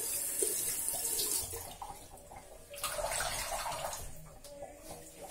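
Tap water running into a sink with splashing, dropping away about a second and a half in and coming back for about a second near three seconds in.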